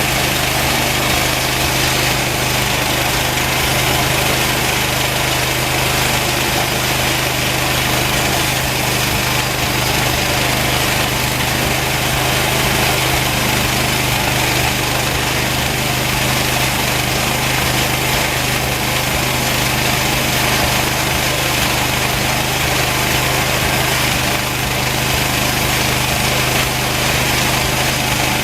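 Homemade band sawmill running steadily under engine power, its worn, much-used blade cutting slowly through a very hard post oak log.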